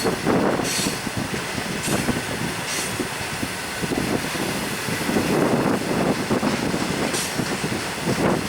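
Loaded coal wagons rolling past on the rails, a steady rumble of wheels and running gear with a few brief high-pitched wheel squeals, the first near the start and another about seven seconds in.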